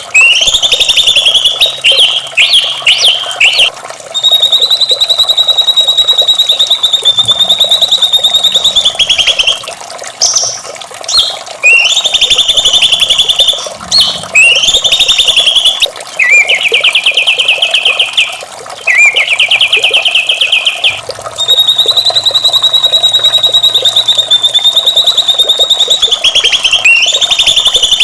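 White-rumped shama singing: long, very rapid high trills held for several seconds at a time, one starting about four seconds in and another after the middle, with shorter trilled phrases between them.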